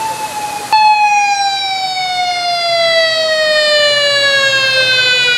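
Police motorcycle escort siren wailing in one long tone that falls slowly in pitch. It gets suddenly louder about a second in.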